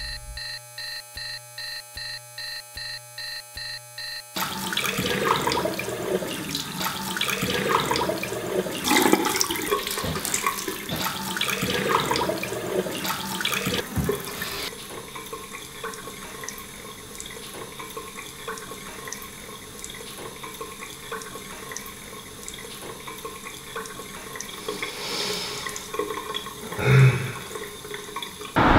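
An alarm beeping in a quick, regular on-off pattern for about four seconds, then a bathroom tap running into a sink, with water splashed by hand onto the face for about ten seconds. The tap then runs on steadily, and there is a brief louder thud near the end.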